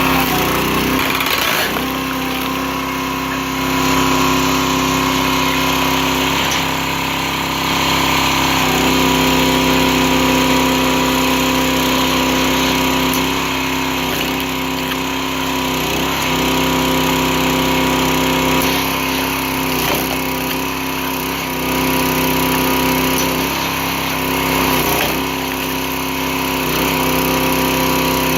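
Loncin gasoline engine of a 22-ton Dirty Hand Tools log splitter running steadily. Its note shifts every few seconds as the hydraulic ram is cycled and the pump takes up and drops load.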